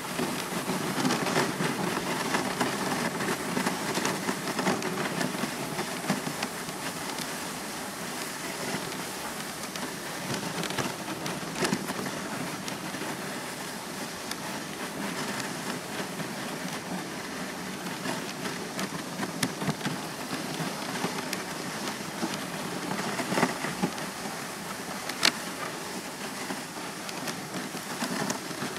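Dog sled gliding over packed snow behind a two-dog team: a steady scraping hiss of the runners with scattered small crunches and clicks, and one sharper click near the end.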